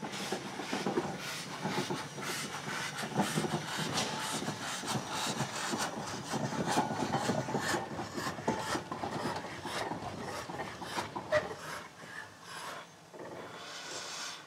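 Cogwheel mountain railway train running, a dense clatter of knocks and rattles with some hiss, falling off in level over the last couple of seconds.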